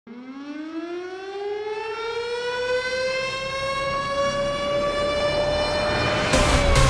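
Air-raid-style siren wail that winds up slowly in pitch for about six seconds and then starts to fall. Near the end a loud electronic dance beat with heavy bass cuts in over it.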